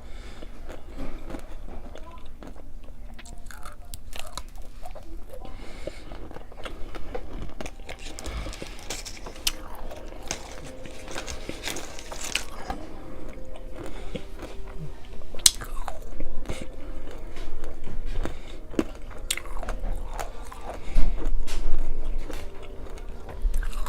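Someone biting and chewing a Nerds Rope candy: a run of sharp crunches as the small hard Nerds break between the teeth, with a louder stretch of crunching near the end.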